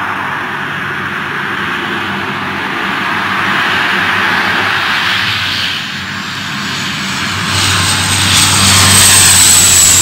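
Twin turboprop engines of a Canadair CL-415 water bomber flying low overhead: a steady rushing drone that swells, dips briefly, then grows loudest near the end, with a high thin whine coming in over the second half.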